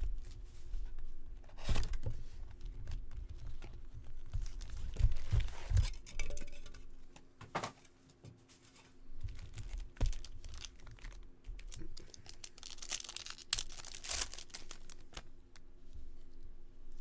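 A 2022 Topps Chrome jumbo pack's wrapper being torn open and crinkled by hand, with the cards inside handled: irregular bursts of tearing and rustling, loudest about two seconds in and again near the end.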